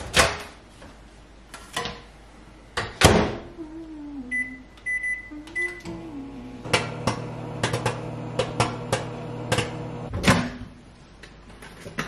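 Over-the-range microwave oven: a loud click and a clunk of the door, three short keypad beeps, then the oven starting up and running with a steady hum, with a few light clicks and knocks over it.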